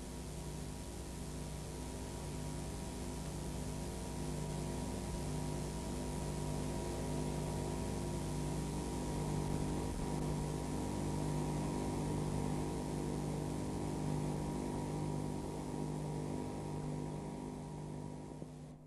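Steady electrical hum with many evenly spaced overtones under a layer of hiss. Its lowest tone swells and fades about once a second, and it cuts off abruptly at the end.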